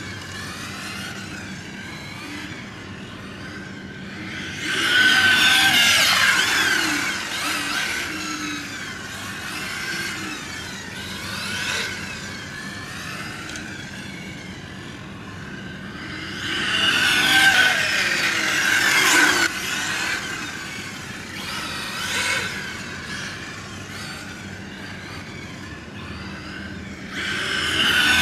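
Electric 1/8-scale RC car, a Hobao Hyper VT with a brushless XERUN 2200kV motor on 6S, accelerating and running past on asphalt. Its motor whine rises and falls in pitch, with tyre noise under it. It is loudest in three fast passes, about 5, 17 and 27 seconds in.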